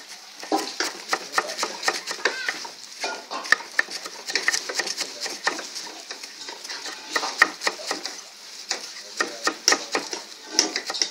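Knives chopping fresh mustard greens on a wooden board: quick, uneven chops, several a second.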